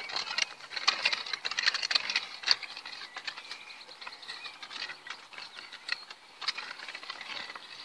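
Weeding tool scraping and scratching through dry, stony soil in a quick run of gritty scrapes. They are thickest over the first few seconds, then sparser, with another burst about six and a half seconds in.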